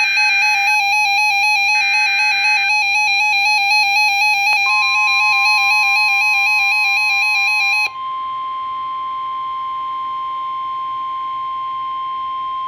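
NOAA Weather Radio flood warning alert: a loud, rapidly warbling electronic alarm with two short bursts of the SAME data header's screeching digital tones near the start. About four and a half seconds in, the steady single-pitch warning alarm tone comes in, and it sounds alone after the warble cuts off around eight seconds in.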